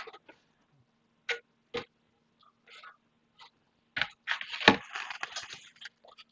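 Metal ECU case being handled and set down on a workbench: a few light clicks, then a sharp knock about four seconds in followed by nearly two seconds of clattering and scraping.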